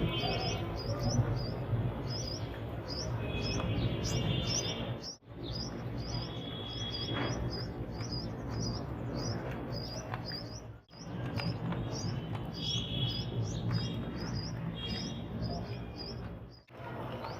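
Tailorbirds chirping, a short high chirp repeated about twice a second without a break, over a steady low rumble.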